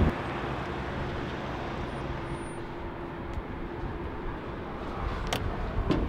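Steady vehicle noise with a faint hum, and a sharp click about five seconds in.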